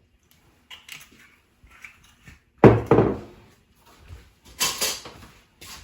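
Kitchen handling sounds while olive oil is measured into a hot cast iron skillet: two heavy knocks close together a little before halfway, then a short clatter near the end.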